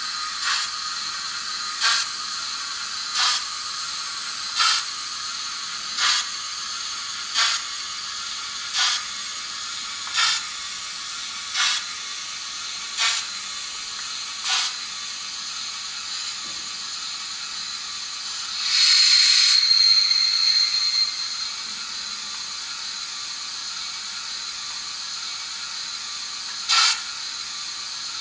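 OO gauge model steam locomotive making light, evenly spaced clicks about every one and a half seconds for the first half. Then comes a burst of hiss lasting about three seconds, and one last click near the end.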